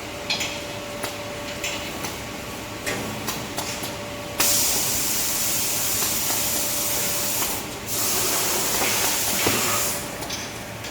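Tissue log bandsaw slitting machine running: a steady hum with light clicks, then a loud hiss of the band blade slicing through the paper log starts about halfway through. The hiss breaks off briefly once and stops about a second before the end.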